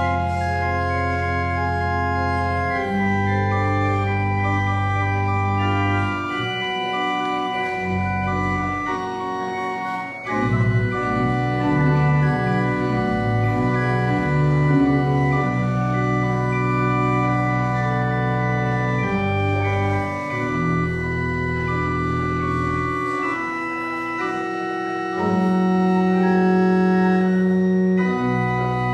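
Church organ playing slow sustained chords over held deep bass notes, with a quicker passage of moving notes about ten seconds in.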